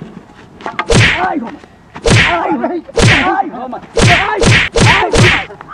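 A run of about six loud slaps and whacks in a scuffle, each followed by a man's short cry. They come about a second apart at first and quicken near the end.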